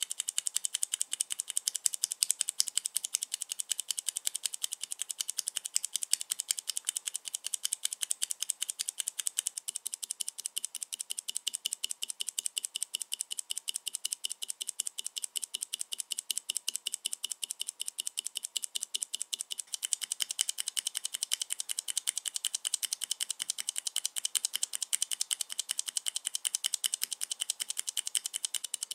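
Keys with Cherry MX mechanical switches pressed in rapid, continuous succession: a dense clatter of key clicks and bottoming-out strokes, slightly louder from about twenty seconds in.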